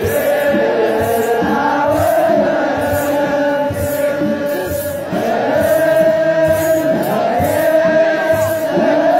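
Ethiopian Orthodox mahlet: a large group of clergy chanting together, with long held notes that slide up and down and a regular rattling beat keeping time.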